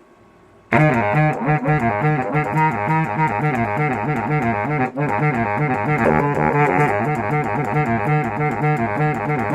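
Music starts sharply under a second in: a saxophone melody over a quick, repeating low bass line.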